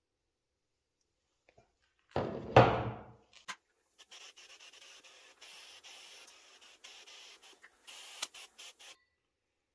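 A loud knock or clunk of an object being handled, then about five seconds of faint rubbing or scraping with small clicks, like hand sanding or rubbing on a part.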